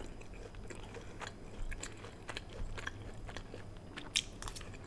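Close-miked mouth sounds of a person chewing Chinese takeout food: soft, scattered wet clicks and small crunches, with one sharper click about four seconds in.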